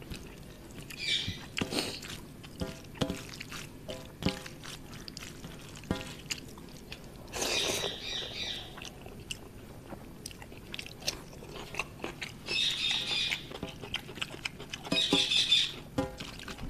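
Close-up eating sounds: a person chewing with wet mouth clicks and smacks while fingers knead and scoop rice on a metal plate. Four brief, higher-pitched squeaky bursts stand out among them.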